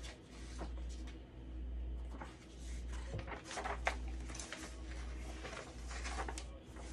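Sheets of paper rustling as they are picked up and handled, over a low rumble that swells and fades about once a second.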